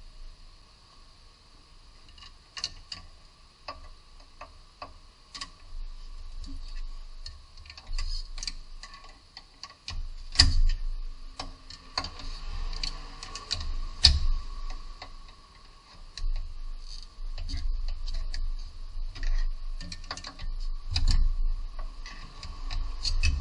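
Hand tools clicking and knocking on the metal of a car's front suspension at the lower control arm: scattered irregular clicks, with a few louder knocks in the second half, over a faint steady hum.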